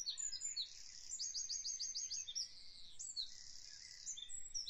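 Birds singing in the background: many high chirps and fast trills of repeated short notes, over faint hiss.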